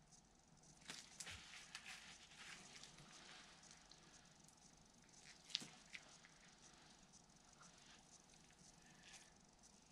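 Near silence with faint rustling and squishing of nitrile-gloved fingers drawing along an epoxy-wetted carbon fiber tow, and a single sharp click about five and a half seconds in.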